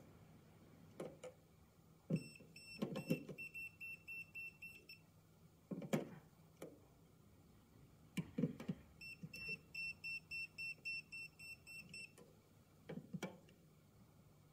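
UNI-T UT12M non-contact voltage detector beeping in two runs of about three seconds each, about four short high beeps a second. The beeping is the detector sensing the electrical field of a live conductor in the socket. A few light knocks of the tester's tip against the socket come between the runs.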